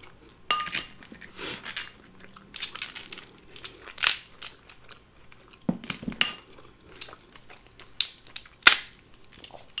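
Cooked Dungeness crab legs and claw shell being cracked and pulled apart by hand: a run of irregular sharp cracks and snaps, loudest twice near the end.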